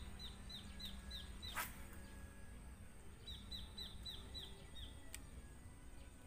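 A bird repeating a short, high chirp about six times a second in two runs, the first stopping about one and a half seconds in and the second coming about three seconds in. A single sharp click sounds about one and a half seconds in.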